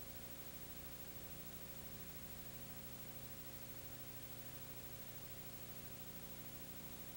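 Steady hiss with a low electrical hum and a faint steady tone, and no other sound: the background noise of a soundless old film transfer.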